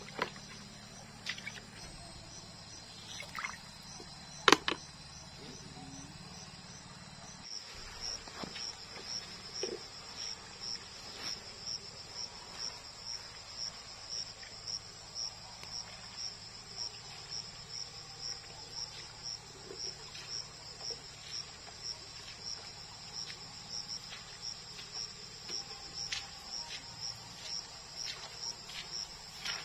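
Insect chirping in a steady rhythm of about two high-pitched pulses a second, starting about a quarter of the way in. Before it, a single sharp knock is the loudest sound.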